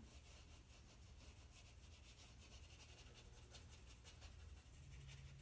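Faint, rapid rubbing of a paper blending stump worked over white charcoal and Conté on black paper, in many short back-and-forth strokes to smooth the tone.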